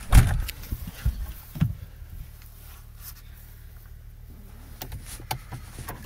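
Thumps and knocks of someone getting into a car's driver seat, with a heavy thud just after the start and more knocks over the next second and a half as the door is shut. After that the outside noise falls away to a quiet car cabin with a few light clicks.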